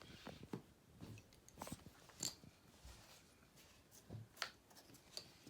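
Faint, irregular taps and light clicks of small toy alphabet pieces being handled and moved about.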